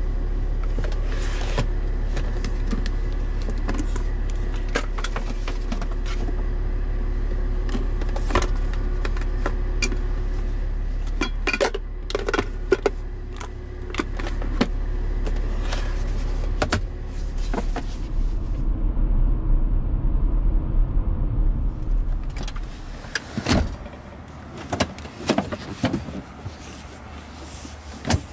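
Land Rover Discovery 4 driving: a steady low rumble of engine and road noise with scattered clicks and knocks. The rumble stops abruptly about 23 seconds in, leaving only a few clicks.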